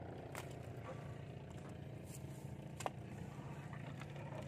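Gill net being hauled by hand into a small outrigger boat: a couple of sharp knocks of net and catch against the hull, over a faint steady low hum.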